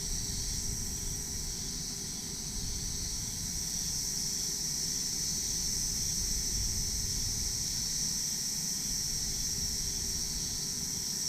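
Steady, unbroken chorus of crickets and other insects in tropical jungle, a continuous high buzz, over a low rumble.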